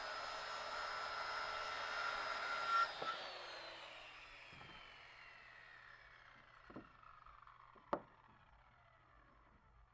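Circular saw cutting through a wooden board, the cut ending with a sharp knock about three seconds in. The blade then spins down with a falling whine that fades over several seconds, with two small knocks near the end.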